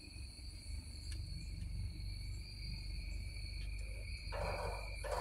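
Steady chorus of insects trilling at several high pitches, over a low rumble. About four seconds in, a brief rustling burst.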